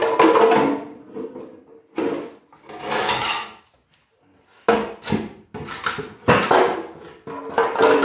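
Fiberglass mold shell scraping and creaking against a concrete casting as it is pulled off and handled, in several separate bursts. There are sharp knocks about five and six seconds in.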